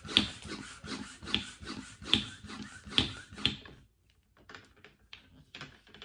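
Plastic vacuum compression bag crinkling and crackling as it is handled, with the bag shrunk down. The crackles are dense for about four seconds, then give way to a few faint, scattered clicks.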